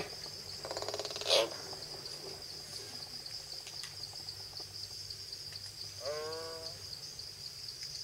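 Common hill myna calling: a harsh buzzy rasp about a second in that ends in a sharp, loud note, then a short pitched call around six seconds in. Under both is a steady high drone of insects.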